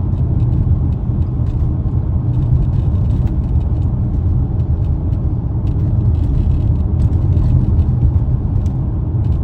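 Car driving on a snowy road: a steady low rumble of road and engine noise.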